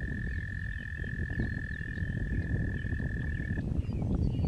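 A frog's long, steady trill held at one high pitch, stopping about three and a half seconds in, over a loud low rumble of wind on the microphone and a few faint, brief chirps.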